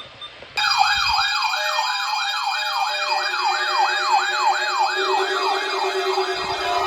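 Weather radio receiver alarm set off by NOAA Weather Radio's weekly warning-alarm test. It starts suddenly about half a second in: a siren-like electronic wail sweeping up and down about three times a second over several steady electronic tones, and a lower steady tone joins about three seconds in.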